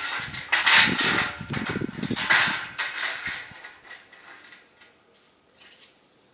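Thin steel bars scraping and clattering against each other and the square steel tubing as they are slid into place, in rough surges for about three and a half seconds, then dying down.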